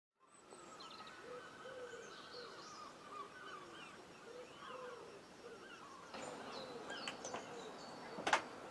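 Birds calling and chirping, a mix of short high chirps and lower repeated calls. Near the end come a couple of small clicks and then one loud sharp click from the handle and latch of a glass patio door being opened.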